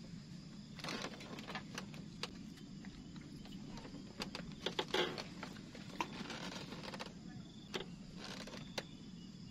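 Fishing rod and tackle being handled: scattered light clicks, knocks and brief rustles over a steady low hum.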